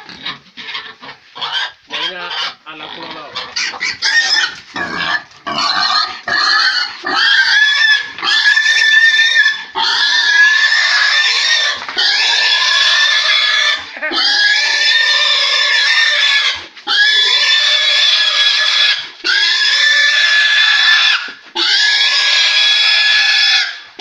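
A domestic pig squealing while men hold it down. Short broken grunts and squeals at first, then long, loud screams of about two seconds each, one after another with brief gaps.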